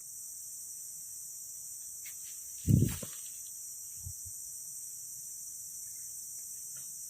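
Steady, high-pitched chorus of insects such as crickets, with a short low thump nearly three seconds in and a fainter one about a second later.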